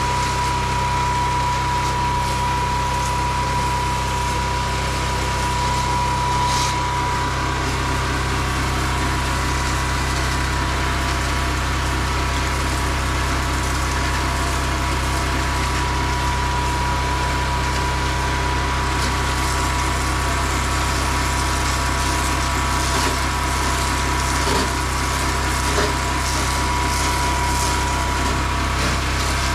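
A pressure-washing rig's pump running steadily, with water spraying.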